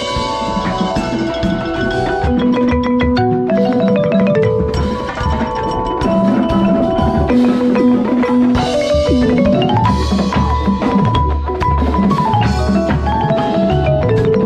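Concert marimba played with four mallets in fast note runs that climb and fall, over the rest of a percussion ensemble with low drum hits.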